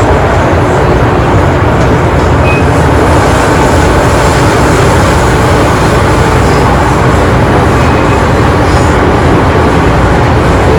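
MTR Island Line M-Train running at speed, heard from inside the car: a loud, steady rumble of wheels on rail and running noise, unchanging throughout.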